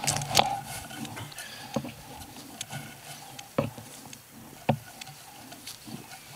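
Fisher F75 metal detector being swept over grass: a faint tone wavers in and out under handling noise, with a few sharp clicks.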